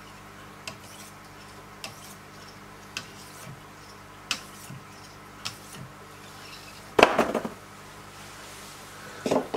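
Wicked Edge sharpener's handheld stones stroked along the edge of a clamped knife blade, giving a light click about every second. About seven seconds in comes a louder clattering knock, and a shorter one near the end, as the stones are put down.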